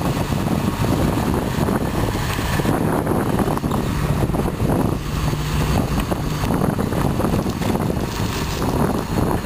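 John Deere 690B excavator's turbo diesel engine running steadily while the machine swings and digs, its low engine tone rising and falling a little with the hydraulic work.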